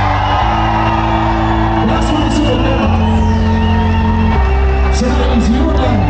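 Loud happy hardcore dance music over a festival sound system: sustained synth chords over heavy bass, changing roughly every second and a half, with shouts over it.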